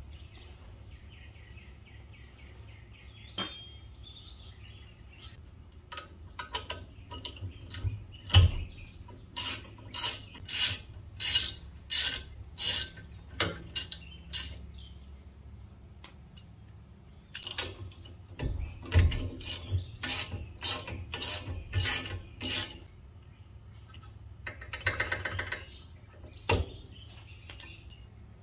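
Hand ratchet wrench clicking in repeated strokes as bolts on a car's front brake are loosened. The strokes come in two runs, about one to two a second, and a fast run of fine clicks follows near the end.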